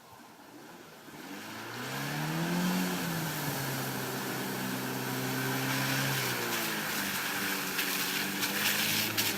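Off-road vehicle's engine revving up, holding, easing off and picking up again, with a steady hiss over it and sharp crackles near the end.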